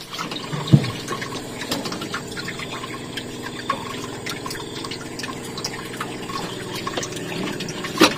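Water splashing and trickling, with scattered clicks and a couple of knocks, over a steady low hum.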